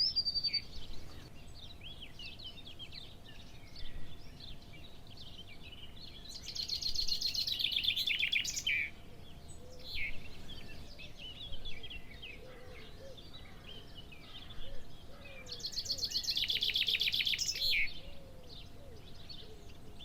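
Wild birds singing: two long, fast trills of about two seconds each, a few seconds apart, with scattered chirps and short calls from other birds in between, over a low background rumble.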